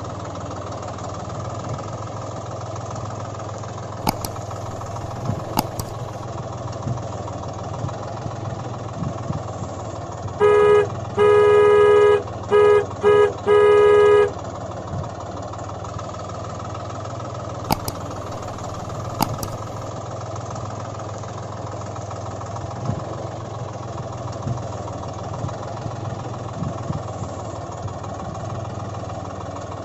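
Tractor engine sound running steadily. About ten seconds in, a vehicle horn sounds loudly: a longer blast, then several short honks, stopping a few seconds later. A few sharp clicks come and go.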